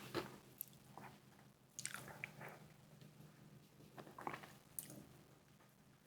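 Faint biting and chewing on a fried chicken wing, in a few short bouts a second or two apart.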